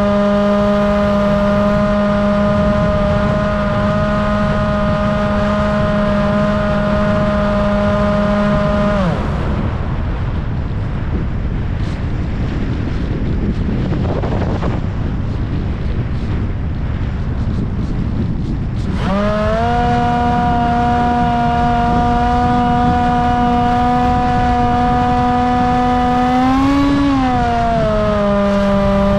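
Electric motor and propeller of a Bixler RC plane running at a steady whine, heard from on board with wind rushing past. About nine seconds in the motor cuts out and only the wind rush remains for about ten seconds; then the motor comes back on, its pitch briefly rises and falls back near the end.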